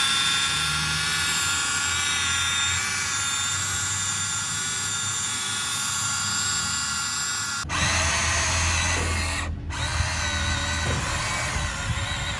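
Electric motors and gearboxes of a Huina RC excavator whining steadily; the whine breaks off about two-thirds of the way through and starts again at a different pitch.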